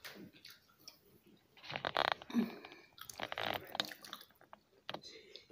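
Soft, damp boiled peanut shells being split open by hand and the peanuts chewed: small cracks and wet squishy crunching, loudest in two bursts about two and three and a half seconds in.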